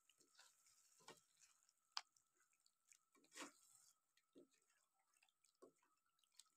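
Near silence broken by a few faint, separate scrapes and wet squelches of a spatula stirring chicken pieces through thick masala in a pan, over a faint steady tone.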